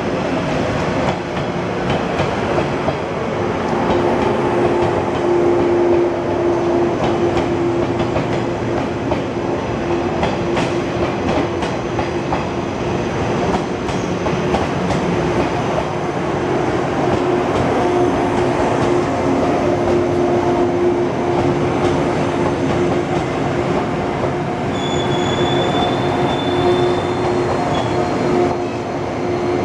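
Electric passenger train rolling slowly past on the tracks: a steady rumble of wheels on rail with a constant hum. There is light clicking over the rail joints in the first half, and a brief high-pitched wheel squeal near the end.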